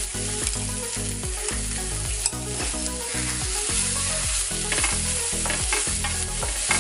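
Chopped onions frying in coconut oil in a non-stick pan, sizzling steadily while a wooden spatula stirs them around the pan.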